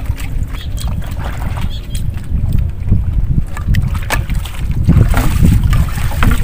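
Wind rumbling on the microphone over water lapping at the side of a boat, with a few light clicks of a spoon against a metal bowl.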